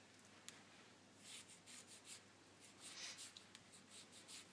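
Faint, soft rasping of a knife slicing the peel and white pith off an orange, in several short strokes.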